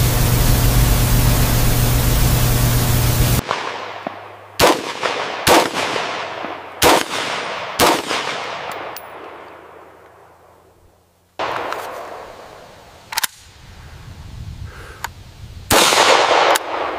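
A loud steady hiss with a low hum cuts off abruptly a few seconds in. It is followed by AR-15-style rifle shots: four single shots roughly a second apart, each echoing away, then two more shots and a louder, longer blast near the end.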